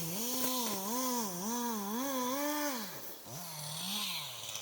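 Chainsaw engine running at a steady working speed, its pitch wavering up and down about twice a second, then dropping lower about three seconds in.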